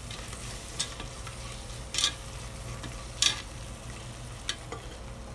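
Metal spatula stirring and scraping onion-tomato masala in a pressure cooker over a steady low sizzle of frying, with two louder scrapes against the pot, about two and three seconds in.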